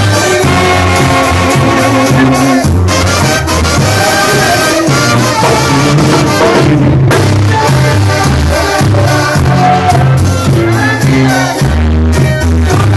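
Loud Latin band music led by trumpets over a steady, moving bass line.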